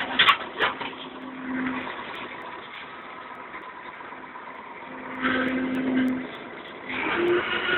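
Claas Senator combine harvester running while harvesting: its engine and machinery make a steady drone, with a few sharp knocks in the first second. The drone grows louder twice, about five seconds in and again about seven seconds in.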